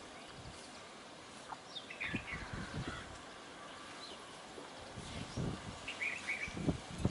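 Asian pied starlings calling: short chirps and whistles in two bursts, about two seconds in and again near six seconds. Between the bursts come soft low thumps, the loudest near the end.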